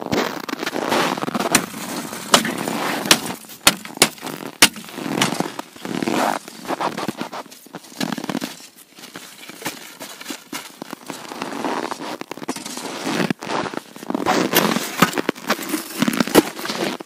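An ice chisel striking ice at an ice-fishing hole. There are about six sharp knocks in the first five seconds, then crunching and scraping of ice and snow, with a few more knocks near the end.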